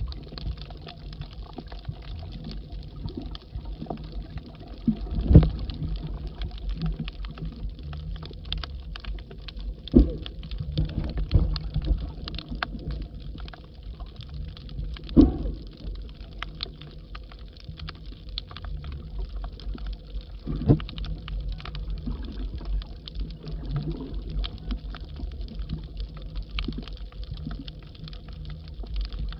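Underwater sound heard through a submerged camera: a steady low rumble of moving water with a constant fine crackle of small clicks. Four louder thumps come about five seconds apart.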